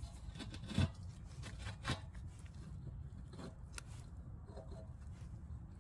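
Cement bricks being nudged and pressed into place on wet mortar by gloved hands: soft scrapes with a few light knocks, the loudest about a second in, over a steady low rumble.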